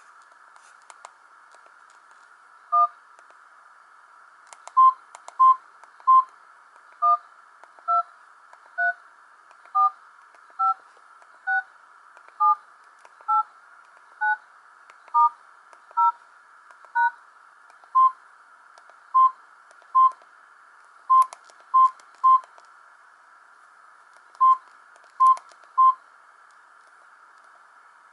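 Samsung GT-E1050 keypad tones: short dual-tone beeps, one per key press, about one a second, stepping through the keys 1 to 9, star, 0 and hash in order. Before and after that run come single plain beeps near 1 kHz, over a faint steady hiss.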